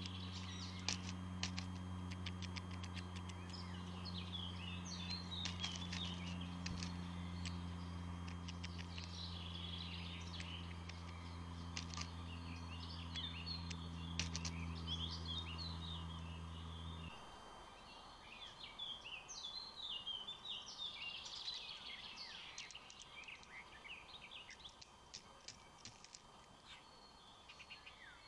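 Backyard birds calling and chirping, with scattered sharp clicks. A steady low mechanical hum underneath stops abruptly about two-thirds of the way through, leaving only the birds.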